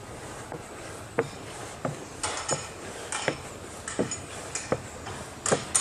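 Footsteps climbing wooden stairs and stepping onto a wooden deck, a knock about every two-thirds of a second, with sharper scuffs joining in from about two seconds in.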